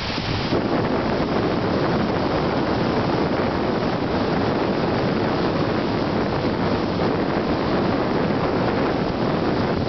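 Steady rush of wind buffeting the microphone, mixed with water noise from a moving boat.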